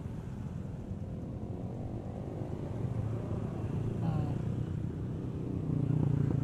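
Small underbone motorcycles riding past one after another, their engines running. The sound builds steadily and is loudest as a bike passes close about six seconds in.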